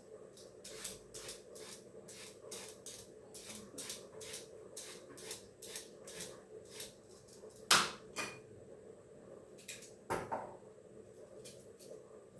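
A kitchen utensil working on vegetables in a quick, even run of short scraping strokes, about two or three a second, over a faint steady hum. Two louder knocks come about two-thirds of the way in, as things are put down or handled.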